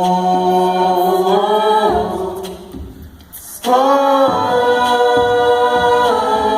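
A cappella vocal ensemble singing two long held "oh" notes, the second one coming in a little past halfway.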